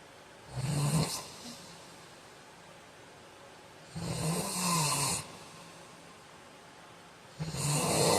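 Man snoring in his sleep: three snores, each about a second long and about three and a half seconds apart, with quieter breathing between them.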